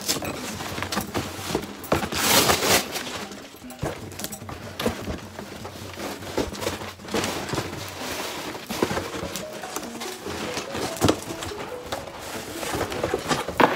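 Cardboard box flaps scraping and knocking as a large shipping box is opened and a flat inner box is lifted out, with packing paper rustling. The loudest rustle comes about two seconds in.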